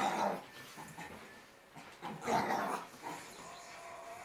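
Shih tzu puppy making short play noises in a hyper fit, with two louder bursts: one at the start and one about two seconds in.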